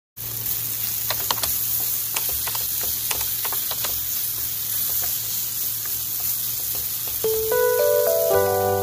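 Chicken pieces sizzling in a nonstick frying pan, with sharp clicks of a wooden spatula stirring them in the first few seconds. Light mallet-instrument background music comes in near the end.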